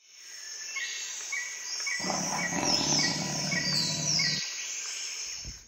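Nature ambience of chirping insects and birds fading in, with a short chirp repeating about every half second and a few falling high calls. A lower, noisy sound joins about two seconds in and stops suddenly about two and a half seconds later.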